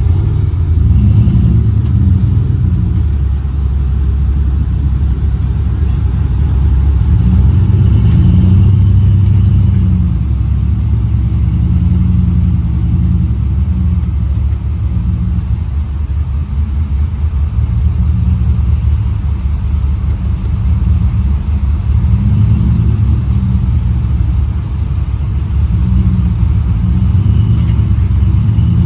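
Off-road truck engine running and revving up and down, its pitch rising and falling every few seconds.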